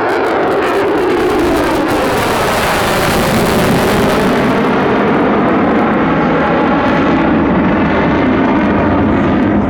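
Lockheed Martin F-22 Raptor's twin turbofan engines making a loud jet pass. The noise is already at full strength as it begins, sweeps in pitch, and is harshest and hissiest about two to four seconds in, then settles into a steady heavy rumble.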